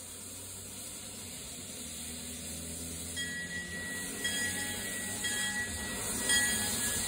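Narrow-gauge steam locomotive approaching slowly, its steam hiss growing steadily louder, with a bell ringing about once a second from about three seconds in.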